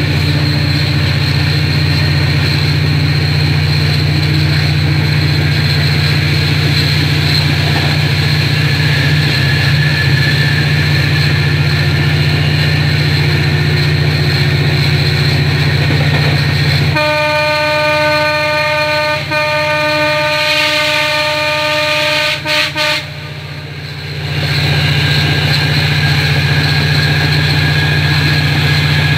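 Diesel passenger train running at speed, heard from inside the carriage as a steady low drone. About 17 seconds in, the train's horn sounds one long steady blast of about six seconds, and the running noise returns soon after.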